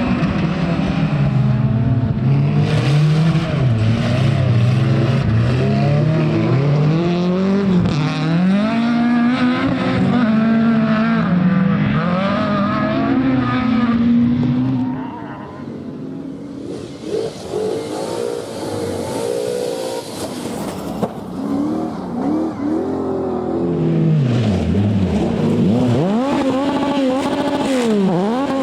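Rally car engines driven hard on a stage, revving up and down through gear changes and lifts. The sound drops away about halfway through, then a car comes through loud again near the end.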